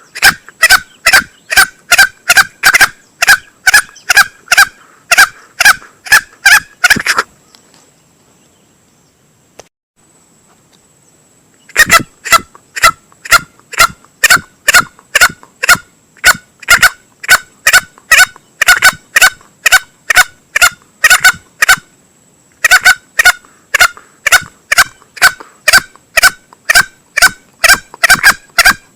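Male green junglefowl calls used as a hunting lure: rapid, evenly spaced clucking pulses, about four a second. They come in three runs, broken by a pause of about four seconds some seven seconds in and a brief pause near two-thirds of the way through.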